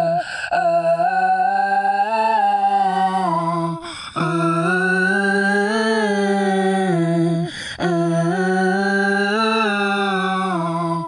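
Music intro: a wordless humming tone held in three long phrases of about three and a half seconds each, rising and falling slightly in pitch, with short breaks between them.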